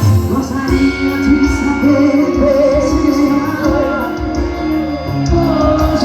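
Live music with singing, including a long note held with vibrato near the middle.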